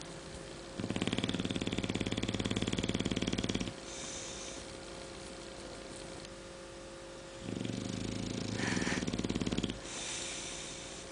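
English bulldog snoring in its sleep: two long, fluttering snores, the first about three seconds and the second about two, each followed by a short breathy exhale.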